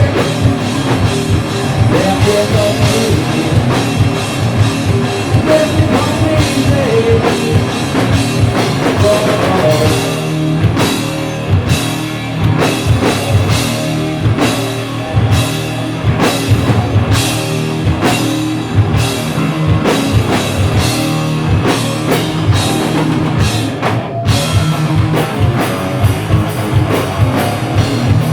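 Stoner rock band playing live at full volume: distorted electric guitar and bass over a pounding drum kit, with a momentary break about 24 seconds in before the band crashes back in.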